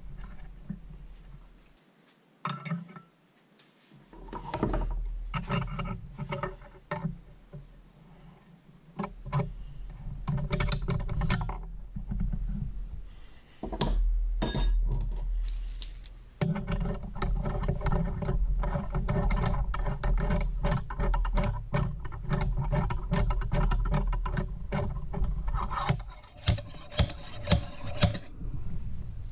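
Metal tools clicking and scraping against a BMW ZF five-speed gearbox's aluminium case. Near the end comes a quick run of about eight sharp metallic knocks: a slide hammer being struck to pull the worn fifth-gear shift detent out of its bore.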